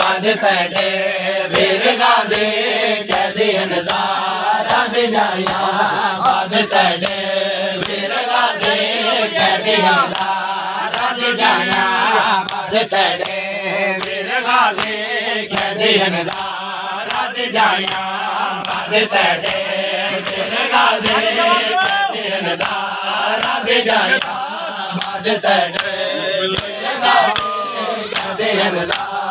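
Crowd of men chanting a Shia noha in unison, with regular sharp slaps of hands on chests (matam) keeping the beat.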